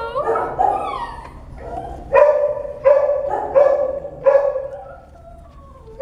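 Puppy howling: a few whining, falling cries at first, then a run of about four short, high howls roughly 0.7 s apart.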